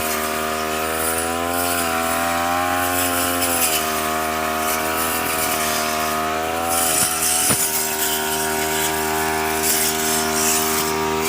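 Two-stroke grass cutter engine running steadily at high speed, its pitch wavering slightly.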